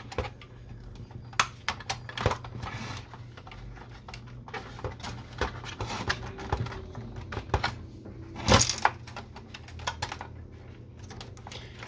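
Scattered plastic clicks and knocks from an Epson XP-340 inkjet printer's frame and paper-feed parts being gripped and pried by hand, with one louder knock about eight and a half seconds in. A steady low hum runs underneath.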